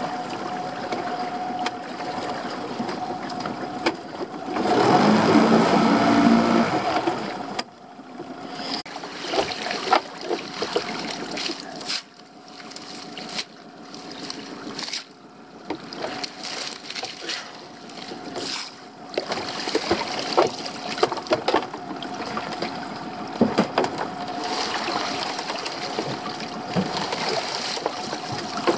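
Small boat's outboard motor running, briefly louder for a few seconds about five seconds in. It then drops away under splashing, dripping water and irregular wooden knocks as a waterlogged, kelp-covered wooden pallet is dragged out of the sea onto the boat.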